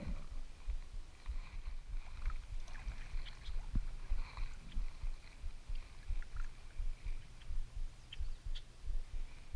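Water lapping against a kayak's hull, with a low, uneven rumble of wind on the microphone and small scattered clicks.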